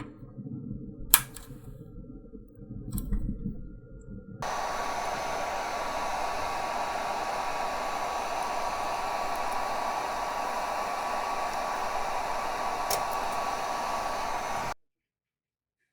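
A hot air rework station blowing steadily, a hiss with a faint thin whine running through it. It starts about four seconds in, after a sharp click about a second in, and cuts off suddenly near the end, as if at an edit.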